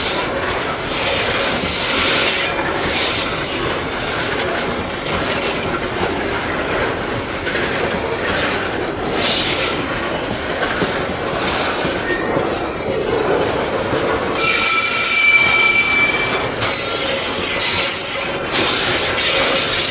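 Loaded coal wagons of a long Babaranjang coal train rolling slowly, a steady grinding rumble of wheels on rail with clatter from the cars. About three-quarters of the way through, a wheel squeals on one high note for about two seconds.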